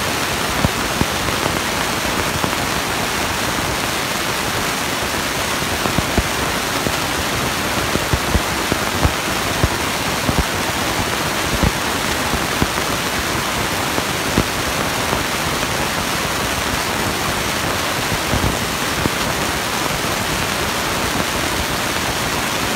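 Monster truck engine running hard in an arena, heard as a dense, even wash of noise with short low thumps scattered through it.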